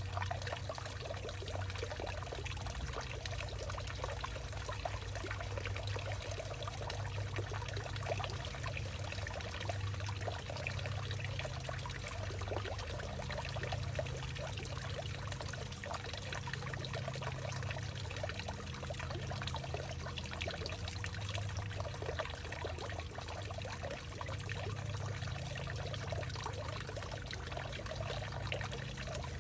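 Water pouring and trickling steadily into and through a hollowed-out tree, with a low rumble beneath the trickle and no pauses.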